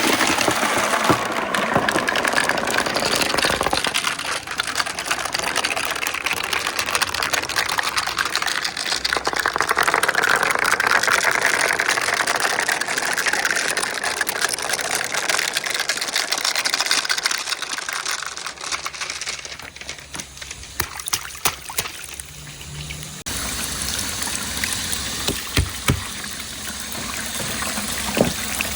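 Water rushing and gushing through a toy water marble run after a held-back pool is released, loud at first and gradually easing off. Scattered clicks and knocks of a marble rolling through the plastic track come through as the flow dies down, in the last third.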